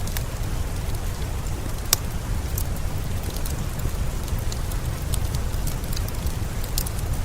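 Steady rain with scattered sharp crackles and pops from a wood fire; one louder pop about two seconds in.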